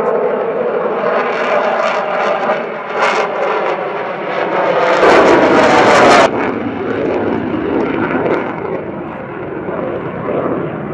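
F-16 fighter jet's engine during a display flight: a steady jet drone that swells into a loud rush about five seconds in. The rush cuts off abruptly just after six seconds, and a rougher, lower rumble follows.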